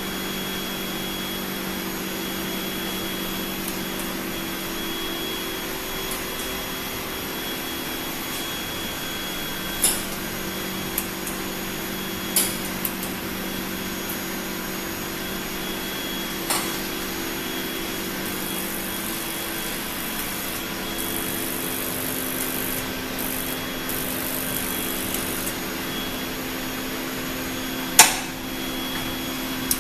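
Cone calorimeter's exhaust blower running with a steady hum, its pitch shifting slightly about two-thirds of the way through. A few sharp clicks and knocks of the apparatus being handled break through, the loudest near the end.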